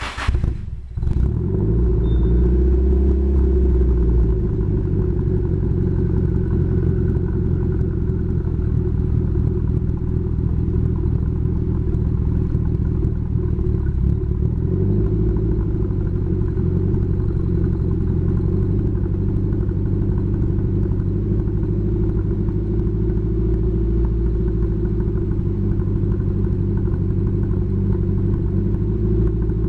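Nissan 240SX's turbocharged SR20DET four-cylinder, fitted with Tomei Poncam 256 camshafts and a custom exhaust, catching about a second in and then idling steadily through the exhaust.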